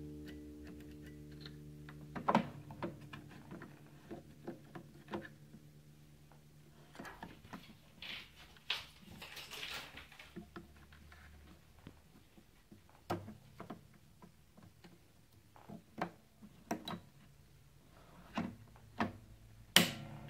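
Plastic clicks and knocks from opening and handling the battery compartment of a Fishman Presys preamp on an acoustic guitar, a compartment said to be very stiff to close, with a scraping stretch in the middle. A guitar string fades out at the start, and a sharp click near the end comes as a button on the preamp panel is pressed.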